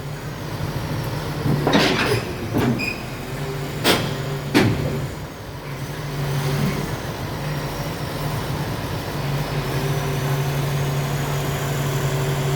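The engine of a large pile-driver rig runs with a steady low drone. A few sharp knocks and clanks come in the first five seconds as the machine moves along the street.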